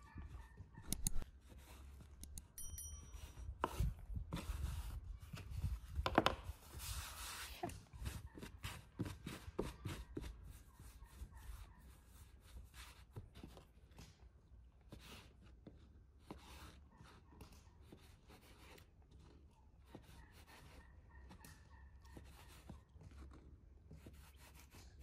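Kitchen knife cutting dough into pieces and tapping on a floured wooden board, with scattered small knocks and rubbing as the dough pieces are pressed and moved by hand. The cutting and rubbing are busiest about four to eight seconds in.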